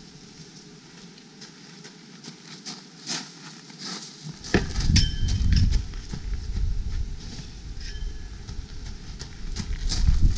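Footsteps crunching on gravel, a run of short irregular clicks. About halfway there is a sharp knock followed by a brief ringing tone, and a low rumble comes in after it.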